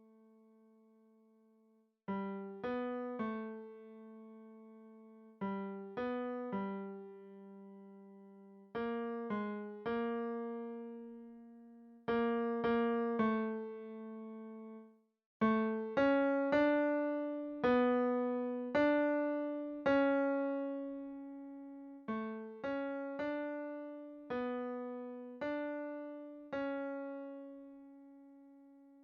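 A single melody line played on a piano-like keyboard sound, one note at a time in short phrases, each note struck and ringing away, with brief pauses between phrases. It is the tenor part of a choral piece played alone, as in a part-learning track.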